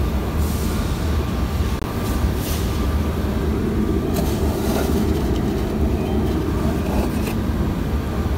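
Steady low rumble with a hiss above it, and a few brief rustles from handling near the microphone.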